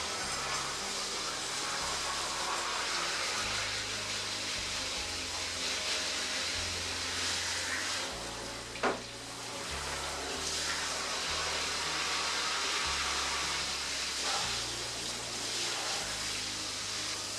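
Running water splashing steadily as a fire pit is rinsed, with a single sharp knock about halfway through. Soft background music plays underneath.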